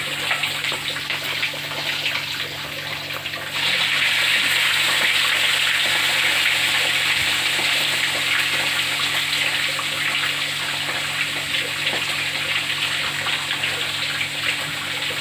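Pieces of bird meat deep-frying in hot oil: a steady crackling sizzle that gets suddenly louder about three and a half seconds in.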